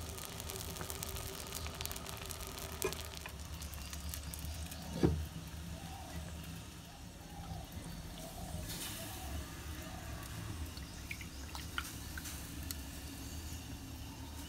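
Rice-flour and coconut-milk pancake batter sizzling faintly as it cooks in a clay pan, over a low steady background noise. One sharp loud knock comes about five seconds in.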